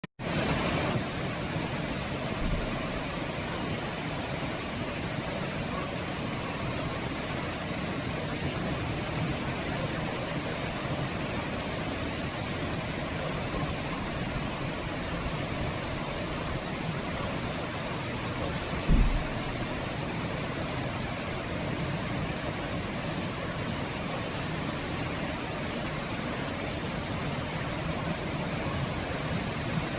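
Steady heavy rain: an even hiss of falling water. There is one brief low thump about two-thirds of the way through.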